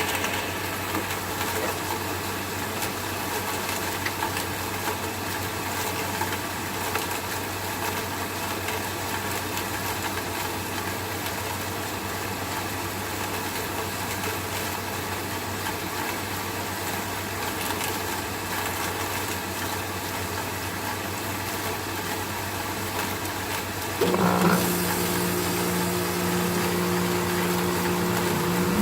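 Air conditioner running with a steady low hum. About 24 seconds in, a louder hum with a steady low tone starts abruptly: the Ruud central air conditioner's outdoor unit starting up after sitting idle.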